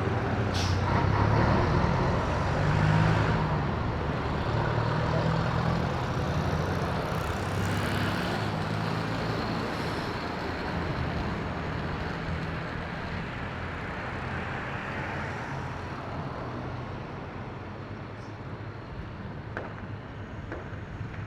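Jet airliner engines: a broad, rumbling roar that is loudest in the first few seconds and slowly fades away.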